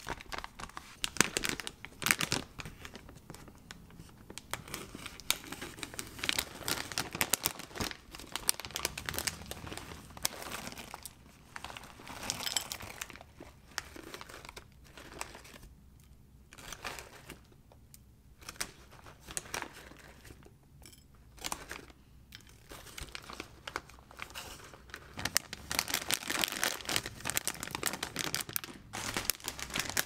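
Granola bag crinkling and rustling in the hands as granola is shaken out into a bowl. It comes in fits and starts, quieter through the middle and busiest near the end.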